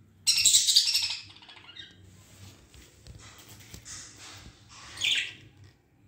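Budgerigars chirping and chattering: a loud burst of high chirps just after the start, softer chatter after it, then another loud chirp about five seconds in.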